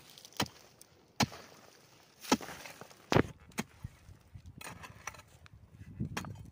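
Mattock blade striking and digging into packed dirt, a string of sharp thuds roughly a second apart, irregular in strength.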